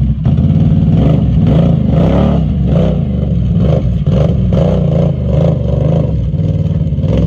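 A Can-Am ATV's V-twin engine revved up and back down over and over, about once a second.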